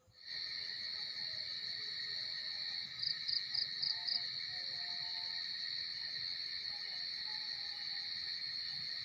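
Steady shrill chorus of insects that cuts in suddenly and holds without a break. About three seconds in comes a quick run of five higher chirps.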